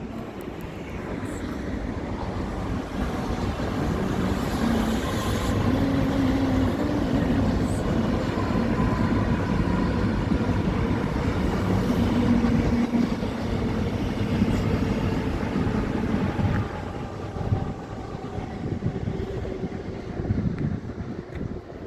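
Steady rumble of a passing vehicle, building over the first few seconds, holding, then easing off after about sixteen seconds.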